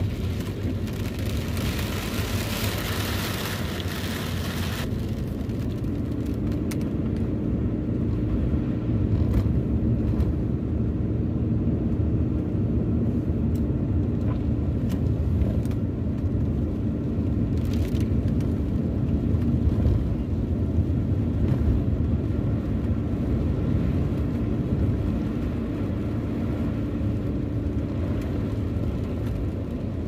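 Heavy rain on a moving car over steady engine and road rumble. The rain hiss cuts off abruptly about five seconds in, leaving the car's low rumble and a faint hum.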